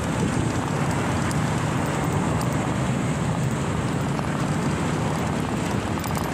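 Steady rushing noise of a moving bicycle ride: wind buffeting the microphone and tyres rolling over a concrete road.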